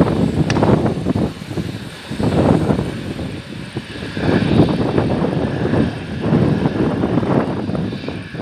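Strong wind buffeting the microphone in gusts, over the whine of an Embraer E-195 jet airliner's GE CF34 turbofan engines.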